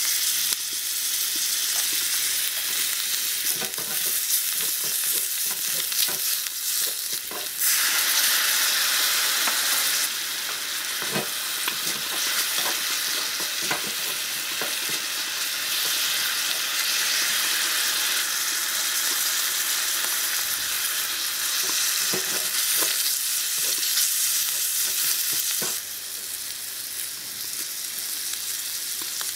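Chopped mushrooms frying and sizzling in a tiny metal wok, with the wooden spatula scraping and tapping the pan as they are stirred. The sizzle grows louder about eight seconds in and quietens a few seconds before the end.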